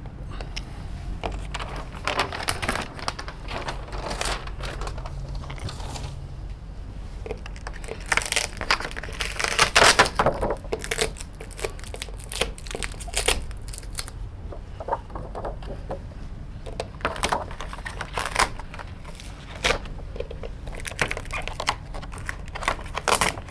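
Paper picture cards being pulled off a whiteboard and handled: irregular rustling and crinkling of paper, in bursts, loudest about ten seconds in.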